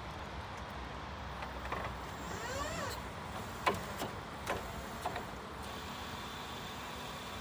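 Mitsubishi FBP30K battery-electric forklift running: its electric motor whines briefly up and down about two seconds in, then comes a handful of sharp clicks, and then a steady high whine.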